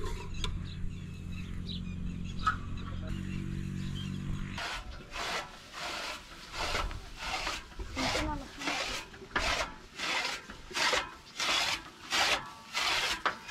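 Hand-cranked flywheel chaff cutter chopping green fodder: a regular rasping swish, about one and a half strokes a second, as the blades slice through the stalks. The strokes start about four and a half seconds in, after a steady low hum.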